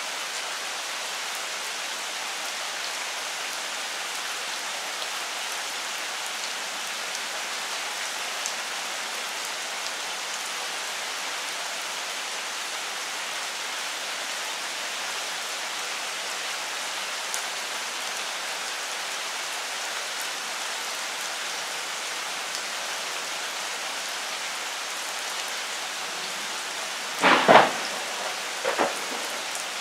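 Steady heavy rain falling on the leaves of a longan tree, an even hiss. Near the end there are two brief louder sounds, the first the loudest.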